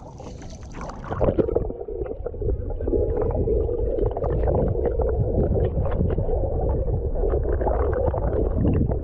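Muffled underwater water noise in a swimming pool: churning and bubbling as a golden retriever paddles close to a submerged action camera. The sound turns muffled about a second in.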